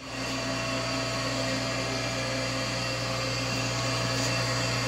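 Harvel surface grinder running steadily, its 1/2 hp three-phase motor and wheel spindle giving a steady low hum with a thin high whine over it.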